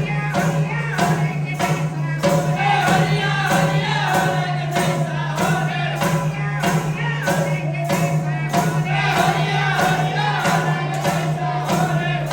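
Music with group singing over a steady percussion beat of about two strokes a second, with jingling like a tambourine and a constant low drone underneath.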